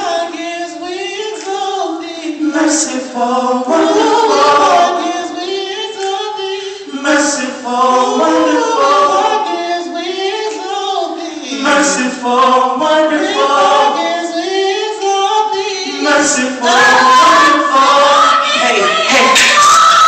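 A small vocal group singing a cappella in close harmony, several voices holding and sliding through sustained phrases, swelling louder near the end.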